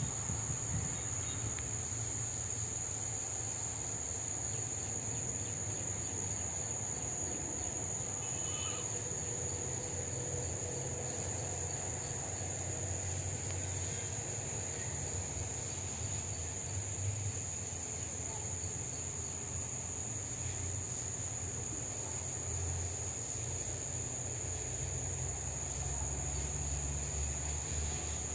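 Steady, high-pitched drone of an insect chorus, unbroken throughout, over a low rumble.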